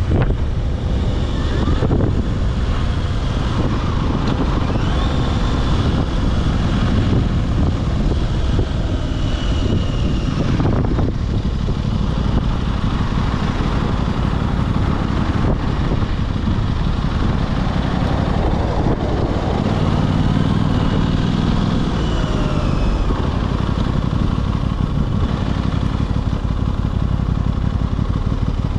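Aprilia RS660 parallel-twin motorcycle engine running steadily under way, heard from the rider's position.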